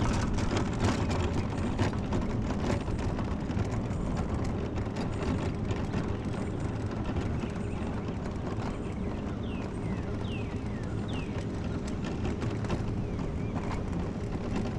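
Electric mobility scooter driving along a street: a steady motor hum, with the tyres and body rattling and clicking over cracked asphalt.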